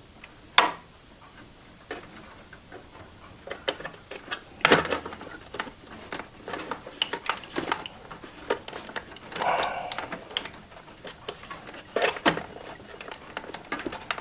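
Irregular clicks, knocks and rustling of cables and plastic connectors being worked into the back of an optical drive inside a desktop computer case, with a few sharper knocks among lighter handling noise.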